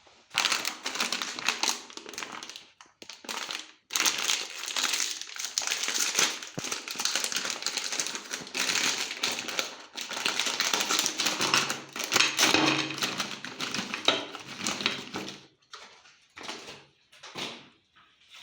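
Meat grinder crushing hard-shelled colourful chocolate candies: a dense, rapid crunching and crackling. It breaks off briefly near the start, stops about 15 seconds in, and is followed by a few separate crunches.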